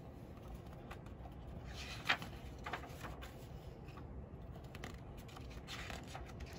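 Pages of a picture book being turned by hand: faint paper rustling and light clicks, with a brief louder flick about two seconds in and another rustle near the end as the next page is lifted.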